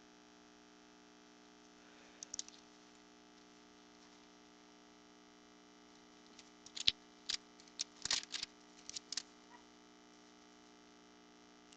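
Faint, scattered light clicks and taps: a few about two seconds in, then a quicker run of them between about six and a half and nine and a half seconds. A steady electrical hum runs beneath them.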